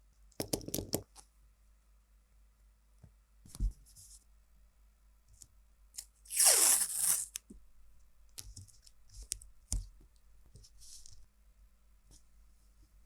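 Hands working on a mechanical keyboard: a quick run of clicks at the start, scattered single clicks and knocks, and one loud tearing sound lasting about a second, about six and a half seconds in.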